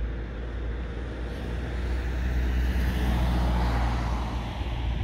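A van driving past on the road, its engine and tyre noise swelling to a peak about three to four seconds in and then fading, over a steady low rumble.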